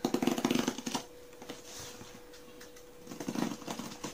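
A knife slicing through the packing tape along a cardboard box's seam: two rapid crackling rasps, the first lasting about a second and the second about three seconds in.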